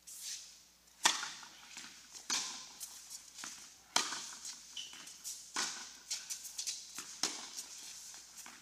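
Tennis ball struck by racquets and bouncing on an indoor hard court, each knock echoing in the hall. A hard serve about a second in is the loudest, followed by a rally of hits and bounces every second or so.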